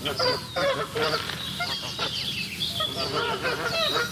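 A flock of geese honking, many overlapping calls in quick succession.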